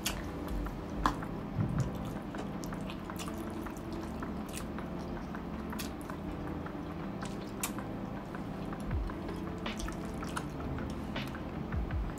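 Close-miked wet mouth sounds of eating: chewing and lip smacks from saucy pork ribs and pineapple braised in coconut milk, eaten by hand, with many short clicks scattered throughout and a few louder ones about a second in.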